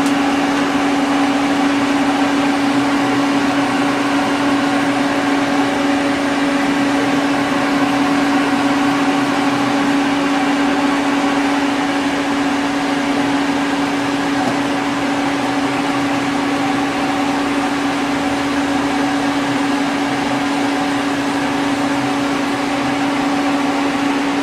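Citizen M32 CNC Swiss-type lathe running with a steady hum and whir while its sub-spindle axes are moved.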